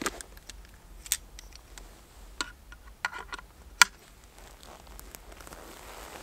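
Sharp clicks and clacks of a scoped rifle being handled and readied on its bipod. There is a handful of separate clicks, with a quick cluster about three seconds in and the loudest clack just before four seconds.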